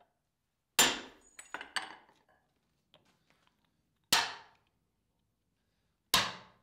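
Three sharp hammer blows, each ringing briefly: one about a second in, one about four seconds in and one near the end, with a few lighter knocks just after the first.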